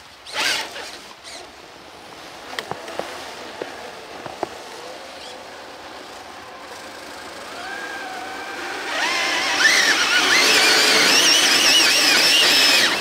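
Electric motor and gear whine of Traxxas TRX-4 1/10-scale RC crawlers driving in snow. After a quieter start with a few small clicks, a whine rises about eight seconds in and turns loud from about nine seconds, its pitch wavering as the throttle changes and the stock tires spin for grip.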